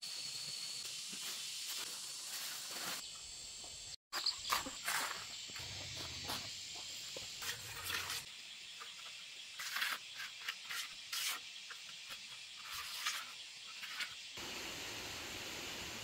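A steady high hiss of outdoor ambience. From about four seconds in it is broken by a run of short rustles and crackles, which stop a couple of seconds before the end.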